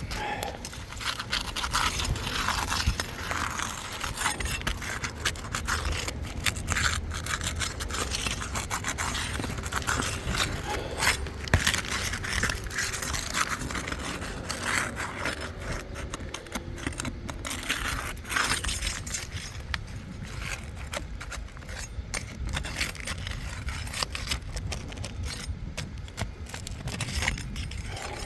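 A roof shingle being pried up and scraped loose, irregular scraping and crackling strokes as it is worked free from the shingles above.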